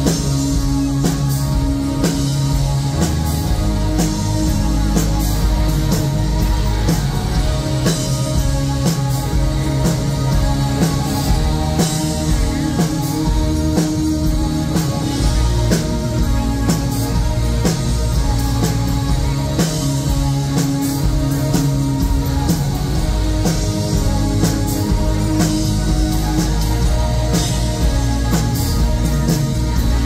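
Live new wave rock band playing through a stage PA: drum kit keeping a steady beat under electric guitar, bass and synthesizer keyboards.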